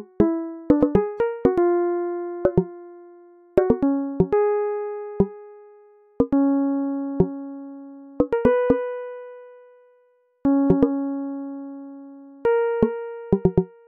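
Background music: a solo keyboard plays a slow melody in short runs of quick notes, each ending on a long note that rings and fades away.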